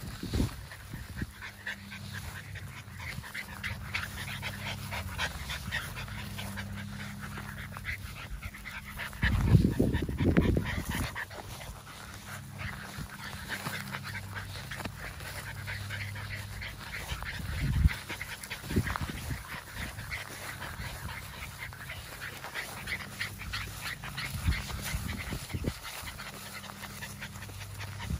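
An American Bully puppy panting. The puppy is tired. A louder, low burst of sound comes about ten seconds in.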